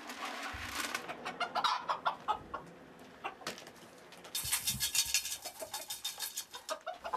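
Domestic hens and a rooster clucking in a small coop, in short repeated notes, with a longer, higher-pitched call lasting about two seconds from about four seconds in.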